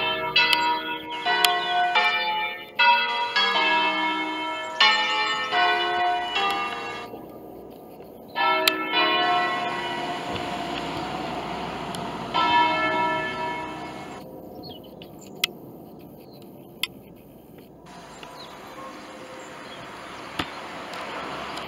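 Five church bells cast by Pruneri in 1887, tuned to a flat E, swung and rung by hand in a fast peal of overlapping strokes. About seven seconds in the strokes thin out to a few last ones, and then the ringing fades away, with a few sharp knocks near the end.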